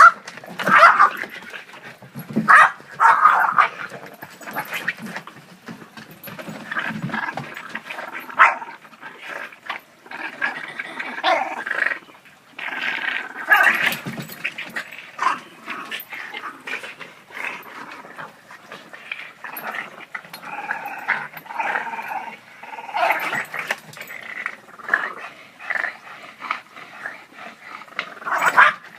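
Two Boston Terriers growling and snarling at each other in rough play, a continuous growl with louder sharp outbursts in the first few seconds and again near the end.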